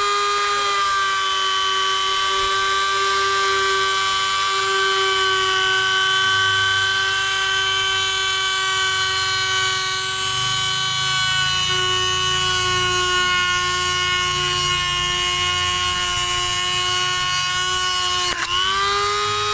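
NRT-Pro 903HD mini rotary grinder running through its flexible-shaft handpiece with a steady high whine, drilling a small hole into a thick piece of wood. Just before the end the pitch drops sharply and comes straight back up.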